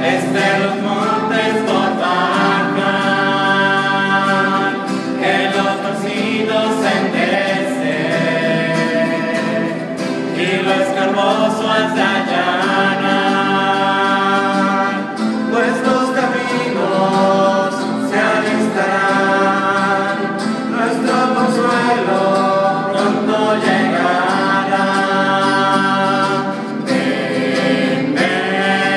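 A small worship group of mixed men's and women's voices singing a Spanish worship song together, with acoustic guitar accompaniment.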